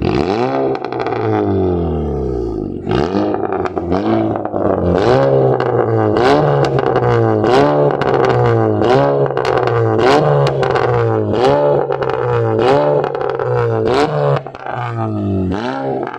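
Honda City engine through a de-catted custom exhaust with 2.0 piping and dual tips, revved in quick repeated blips, about one every 0.7 seconds. Each blip rises and falls in pitch and is followed by sharp exhaust pops and crackles on the overrun. It eases back near the end before one last blip.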